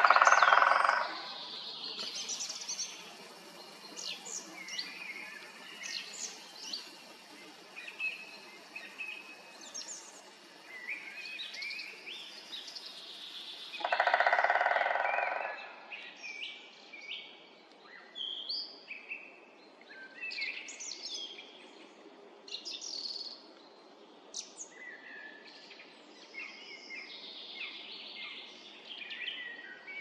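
Great spotted woodpecker drumming on a tree trunk: a rapid roll of about a second at the start and another about fourteen seconds in. Small birds chirp and call throughout.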